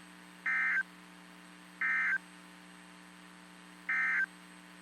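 NOAA Weather Radio SAME end-of-message data bursts: three short, buzzy digital tone bursts that mark the end of the broadcast alert, over a steady receiver hum.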